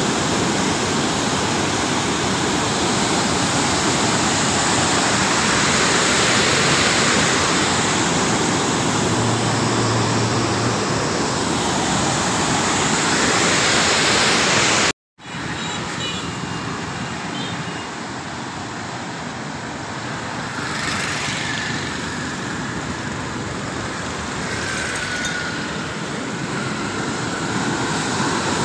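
River water rushing through a barrage's open sluice gates: a steady, loud roar of churning water. The sound breaks off briefly about halfway, then carries on a little quieter.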